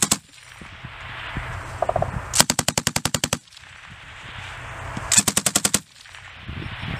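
M249 light machine gun firing short bursts. The end of one burst comes right at the start, then a burst of about ten rounds a couple of seconds in, and one of about seven rounds near the end.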